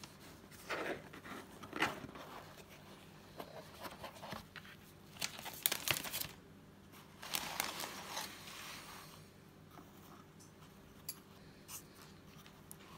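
Handling noises as a cardboard gift box is opened and moved about on loose plastic wrap: rustling, crinkling and scraping in irregular bursts, with a couple of light clicks near the end.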